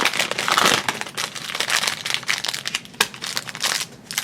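Thin plastic blind-bag foil being crinkled and torn open by hand, an irregular crackle with sharp snaps.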